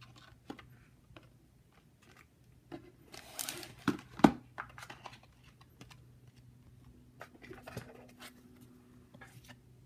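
Playing cards and a cardboard game box being handled: scattered light taps and clicks, with a brief scraping rustle about three seconds in followed by two sharp clicks, the loudest sounds.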